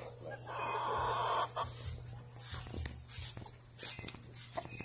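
Chickens clucking in a small wire pen. A longer harsh call comes about half a second in, followed by a series of short clucks spaced roughly half a second to a second apart.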